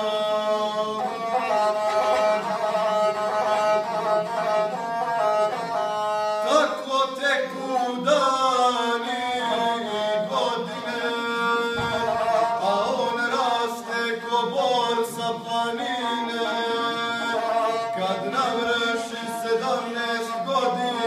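Guslar singing a Serbian epic song in long held lines while bowing a gusle, the single-string folk fiddle, which follows his voice. The notes slide between pitches.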